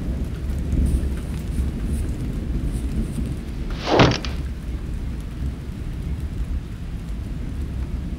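Thunderstorm sound effect: a steady low rumble of thunder under the hiss of rain, with one short, loud crash about four seconds in.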